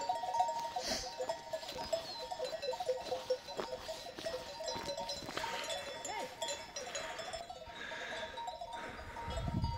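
Bells on a grazing flock of sheep clinking and jangling steadily, with a sheep bleating now and then.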